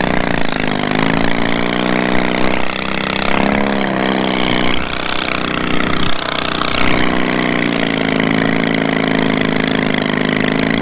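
Riding lawn mower engine running hard through twin upright exhaust pipes, its pitch dipping and rising several times and then holding steady near the end, while the drive belt slips so much in the snow.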